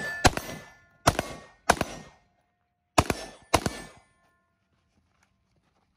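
Budget-built AR-15 rifle firing five shots in quick pairs, about half a second apart within each pair. Several shots are followed by a short metallic ring. The firing stops a little after the halfway point.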